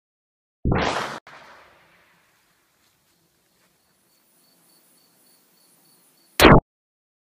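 Two shots from a Saiga 410, a Kalashnikov-pattern semi-automatic .410 shotgun. The first is a loud bang about a second in with a short fading tail, and the second is a shorter, sharper bang near the end. Insects chirp faintly in the grass between them.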